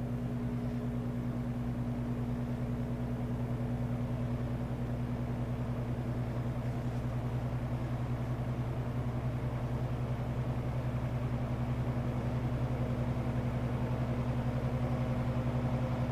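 1963 GE box fan's electric motor and blade running on low speed, blowing toward the microphone: a steady hum over air noise. It grows slowly louder as the motor is still coming up to its low-speed RPM.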